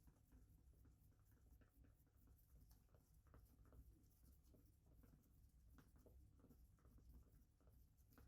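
Near silence, with faint, irregular scratching and ticking.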